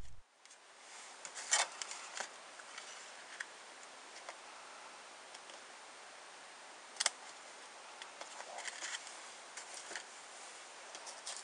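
Cardstock being handled and pressed down on a craft mat: a few scattered light taps and paper rustles over a faint steady hiss, the sharpest tap about seven seconds in and a cluster of small taps near the end.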